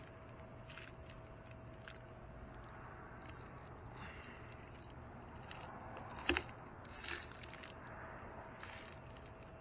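Faint scuffs, crunches and rustles of a tree climber shifting on a pine trunk in climbing spurs and harness gear. A sharp click a little past the middle is the loudest sound, followed by a brief rustle. A faint steady tone runs underneath.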